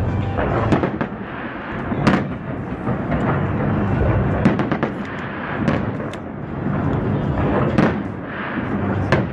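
Aerial fireworks shells bursting overhead in quick succession: a continuous rumble of booms, with several sharper bangs standing out every second or two.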